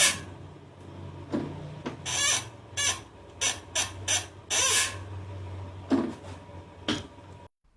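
Squeaking from a 1997 Toyota Starlet's hydraulic clutch as the pedal is pressed repeatedly: short, high squeaks about a dozen times at uneven intervals, over a steady low hum. The squeak comes from the dry slave cylinder pushrod and release fork pivot ball, which need grease.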